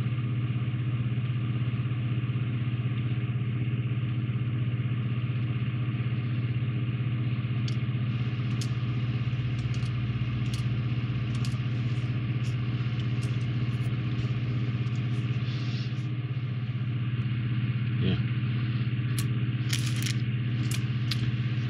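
A steady low machine hum, like a motor or fan running, with a stack of even tones. Over it come a few faint small clicks, more of them near the end, from tiny plastic window frames being cut free and set down on the table.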